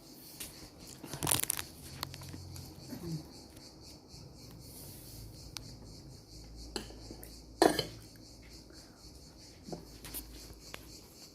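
Cutlery and dishes clinking while a person eats: a few sharp knocks, the loudest about a second in and about two-thirds of the way through, with lighter clicks between, over a low steady hum.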